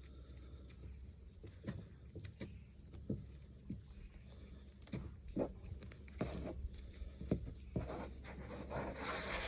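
Gloved hands pulling wet feathers from a scalded chicken: irregular short snaps and rips, with a longer rustling stretch near the end.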